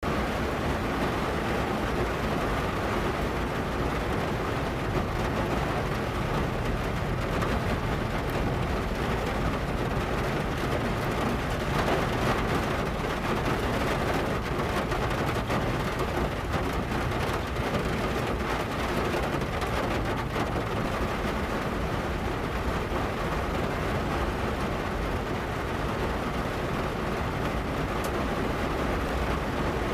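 Steady rain drumming on the metal hood of a Chevrolet car, a dense, even patter of drops.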